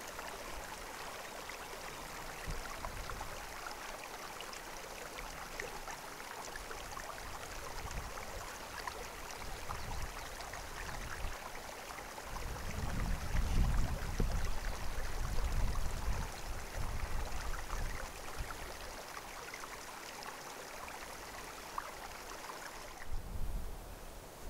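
Steady rush of a creek flowing, with wind buffeting the microphone in low gusts for several seconds around the middle. The rushing drops away near the end.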